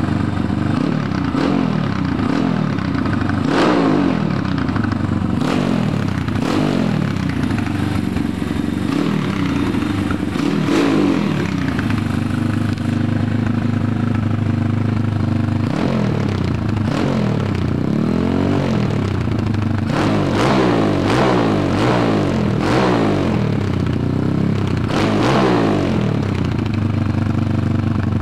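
DHZ Dpro 140 pit bike's four-stroke single-cylinder engine idling and being revved again and again, each blip rising sharply and dropping back to idle, the blips coming closer together in the second half.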